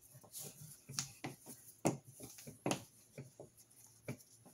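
Nylon climbing ropes being handled as a tightly set double fisherman's knot is worked loose by hand: faint, irregular rustles and soft clicks of rope rubbing and sliding through rope.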